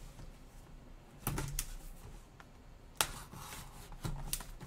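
A cardboard box handled on a table with gloved hands: a handful of sharp knocks and taps as it is picked up, turned and set down, the sharpest about three seconds in.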